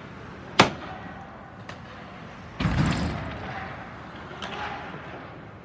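Ice hockey play: a sharp crack of a stick or puck strike about half a second in, then a heavier bang lasting about half a second, like a puck or player hitting the boards, about two and a half seconds in, with a few fainter clicks after.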